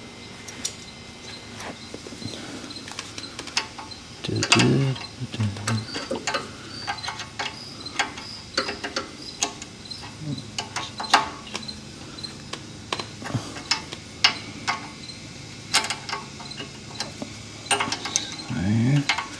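14 mm wrench tightening a brake line flare nut on a car's brake caliper: irregular metallic clicks and taps as the wrench is worked.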